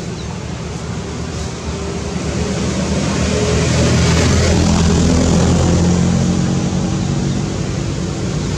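A motor engine droning steadily, growing louder through the middle and easing off a little near the end.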